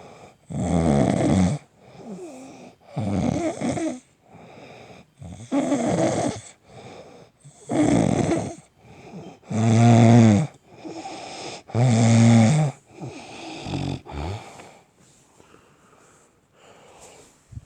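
Snoring: a run of loud rasping snores about every two seconds, with quieter breaths in between, trailing off after about fourteen seconds.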